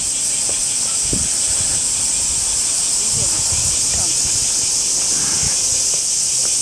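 Cicadas singing in the trees, a loud, steady, high-pitched buzz that does not let up.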